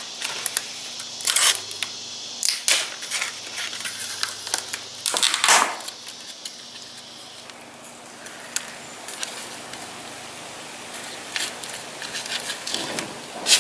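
Scattered clicks, taps and rustling of hands handling small carburetor parts and packaging on a workbench, with a louder rustle about five seconds in and a quieter stretch after it.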